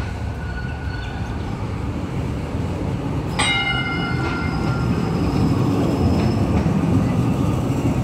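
Melbourne Z3-class tram rolling into the stop with a low rumble that grows louder. About three and a half seconds in, a tram gong is struck once and rings out, fading over a second or two.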